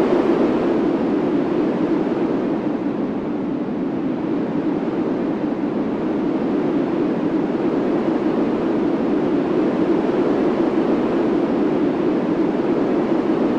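Steady rushing noise, even in level throughout, with no distinct knocks, clicks or changes.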